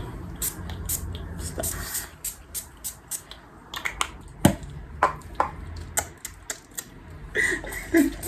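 Irregular light clicks and taps from small makeup items being handled, a few a second. A brief vocal sound comes near the end.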